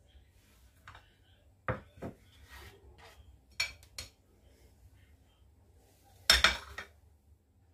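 Kitchen knife knocking and scraping on a bamboo cutting board as chopped onion is cleared off into a bowl: a few separate knocks, then a louder ringing clatter of a dish or pot set down on the counter about six seconds in.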